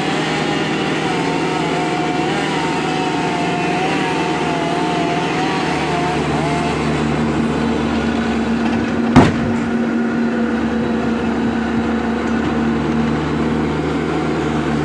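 Work truck engine running steadily, with a wavering whine that fades out about six and a half seconds in. A single sharp knock about nine seconds in is the loudest sound.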